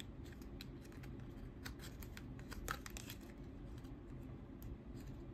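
Faint, scattered small clicks and scratches of fingers working a small metal pin off its cardboard backing card.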